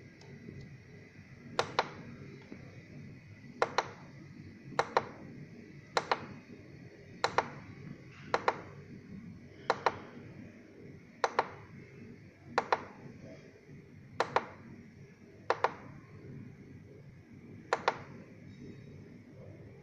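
The UNIT push button on an SF-802 digital scale clicking as it is pressed about a dozen times, one to two seconds apart. Each press gives a quick double click, and the presses step the scale through its weight units.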